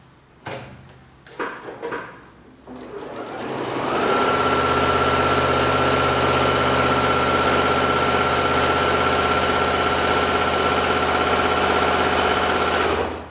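Electric sewing machine stitching through a quilt: a few light knocks at first, then the motor speeds up over about a second and runs at a steady pace for about nine seconds before stopping near the end.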